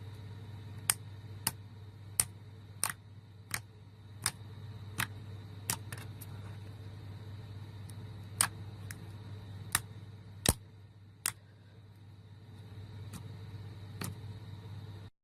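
Clear slime being pressed and worked by hand, giving sharp popping clicks about every 0.7 s, with a pause in the middle, over a steady low hum.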